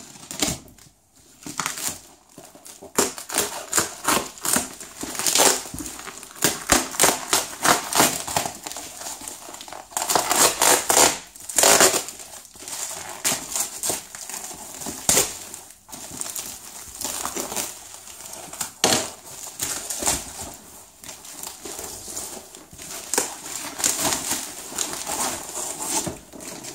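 Plastic courier mailer bag and a thin foam wrapping sheet crinkling and tearing as a parcel is unwrapped by hand: a long run of irregular rustles and sharp rips.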